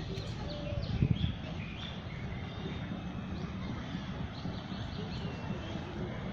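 Several birds chirping and calling in short notes over a steady low rumble, with a brief knock about a second in.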